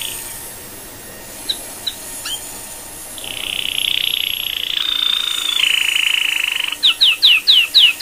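High-pitched trilling and chirping tones, with no router motor heard. A steady buzzy trill starts about three seconds in, and near the end comes a fast run of falling chirps, about five a second.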